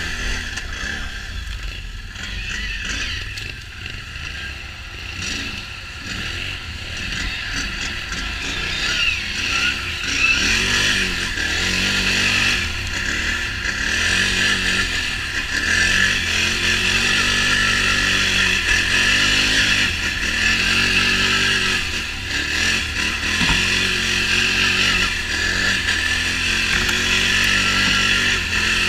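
Can-Am Renegade XMR 1000 ATV's V-twin engine running under way, its revs rising and falling again and again, louder from about ten seconds in.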